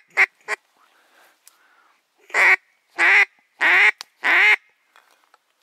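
Duck quacking loud and close: two short quacks just after the start, then four longer, evenly spaced quacks about two seconds in.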